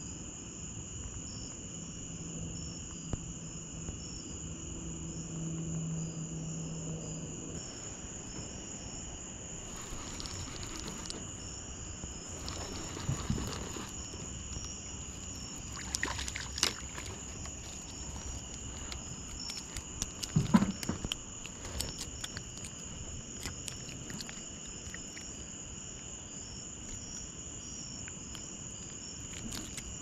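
Summer night insect chorus: crickets and other insects trilling steadily in high, continuous bands. A low steady drone joins it for several seconds near the start, and a few short knocks and rustles come from gear being handled in the boat.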